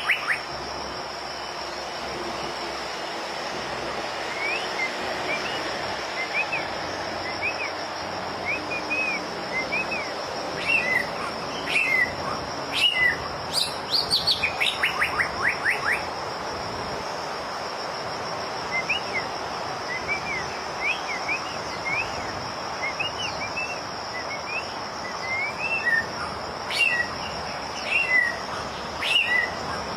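White-rumped shama singing in short whistled phrases and chirps, with a quick run of repeated rising notes around halfway through. A steady high insect buzz runs underneath.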